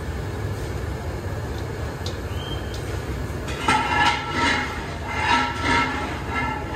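Steady low rumble of road traffic, with several short pitched sounds over it in the second half, the loudest of them a little after halfway.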